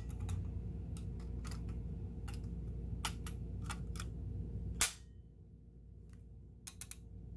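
Small clicks and taps of a sewing-machine monogrammer attachment being handled and fitted into place, with a sharper click about five seconds in.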